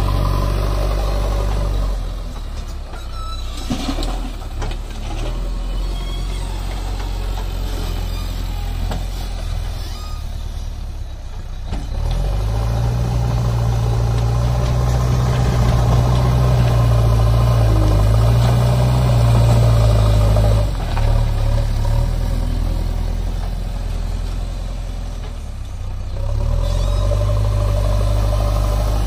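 JCB 3DX backhoe loader's diesel engine running while its front bucket digs and lifts soil. The engine revs up under load for a long stretch from about twelve seconds in, dips briefly, then revs up again near the end.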